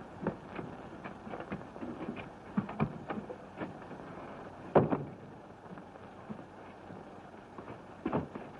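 Steady hiss of an old optical film soundtrack, with scattered soft knocks and clicks, a sharper thump about five seconds in and another near the end.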